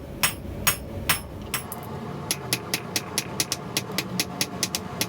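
Blacksmith's hammer striking a steel rod on an anvil: a few spaced blows, then from about two seconds in a steady quick rhythm of about five blows a second.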